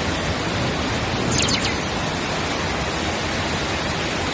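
Muddy floodwater rushing in a torrent across a road and pouring from drain outlets down a concrete retaining wall: a loud, steady rush of water.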